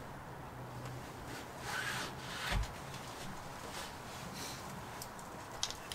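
Rubbing and scraping as a rusty suspension part is handled, with a dull knock about two and a half seconds in and a couple of light ticks near the end.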